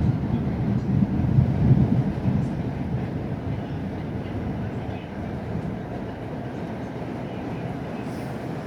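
Thunder rumbling, loudest about one to two seconds in, then settling into a lower, steady roll.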